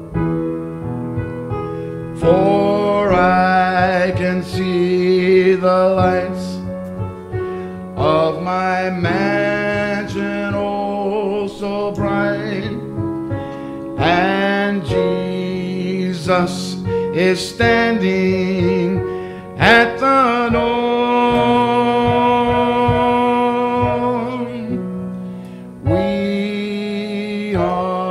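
A man singing a slow gospel song with piano accompaniment, in phrases with long held, wavering notes, one held for several seconds about two-thirds of the way through.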